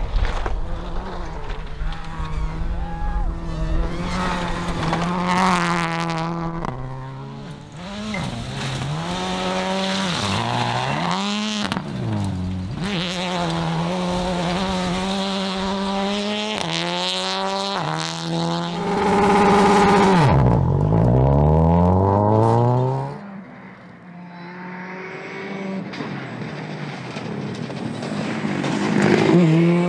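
Rally car engines at full throttle on a stage, the revs climbing and dropping repeatedly through gear changes. The loudest car goes by about 19 seconds in, its pitch falling steeply as it passes, and another car comes up loud near the end.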